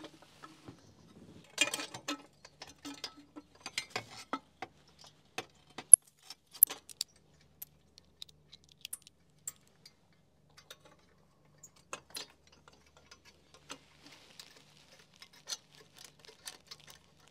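Irregular metallic clicks, clinks and small knocks of Jekill & Hyde exhaust header pipes and hand tools as the headers are fitted to a Harley-Davidson V-twin's cylinder heads, with one sharper clack about six seconds in.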